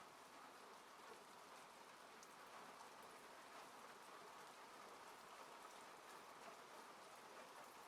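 Faint, steady rain on a car's roof and windows, heard from inside the car, with scattered single drop ticks over an even hiss.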